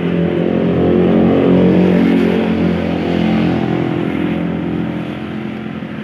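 A motor vehicle's engine passing close by, growing louder over the first two seconds and then fading away.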